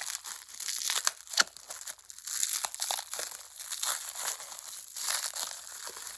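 Plastic wrapping being crinkled and pulled off by hand, in irregular crackling rustles, with one sharp click about a second and a half in.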